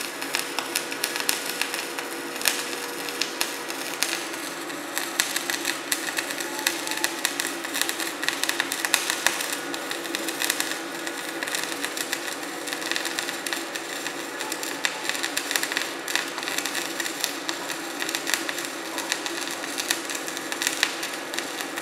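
Flux-cored wire welding arc from a MIG gun with CO2 shielding gas, burning continuously along a vertical fillet weld: a steady, dense crackle of many fast small pops, with a faint steady hum beneath.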